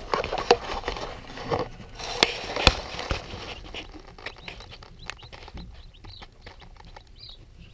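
Wood shavings rustling and several sharp knocks as the camera is moved and settled into the brooder litter. This gives way to quieter, rapid light ticking and scratching of chicks pecking and stepping in the wood shavings, with a few faint chick peeps near the end.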